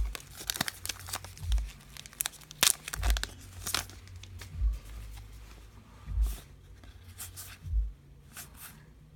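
Foil wrapper of a baseball card pack being torn open and crinkled, with a dense run of crackling in the first few seconds. After that come the softer sounds of cards being handled, with a dull thump about every second and a half.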